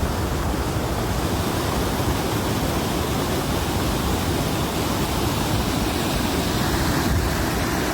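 Steady rushing of floodwater, an even, unbroken noise that cuts off suddenly at the end.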